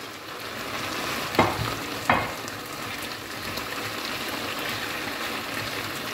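Beef and vegetables sizzling steadily in a frying pan while being stirred with a wooden spatula, with two sharp knocks about a second and a half in and again about two seconds in.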